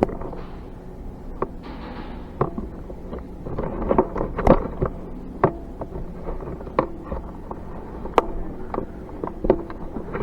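Scattered sharp cracks and clicks of airsoft gunfire and BB pellets striking, irregularly spaced and at times in quick clusters, over a steady low hum.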